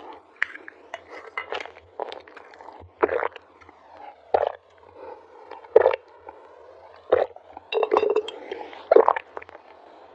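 Close-up sipping and slurping through a drinking straw: a series of short pulls about a second or so apart, with wet mouth sounds and small clicks between them.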